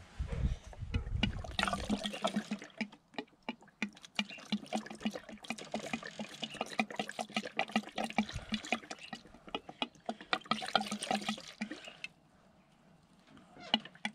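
Diesel pouring from a plastic jerry can through a flexible spout into a plastic tub, splashing and gurgling, stopping about twelve seconds in.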